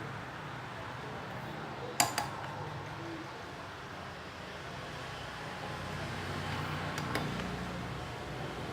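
Two sharp clinks of small hard objects, like a metal tool set down on a bench, about two seconds in, and a fainter pair of clicks near the end, over a steady low hum.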